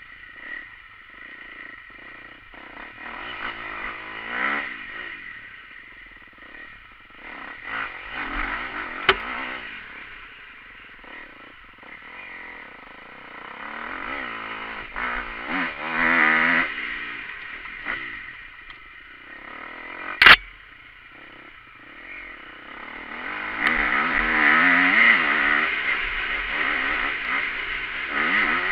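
Motocross bike engine heard from an onboard camera, revving up in repeated surges and easing off between them. A single sharp knock stands out about two-thirds of the way through.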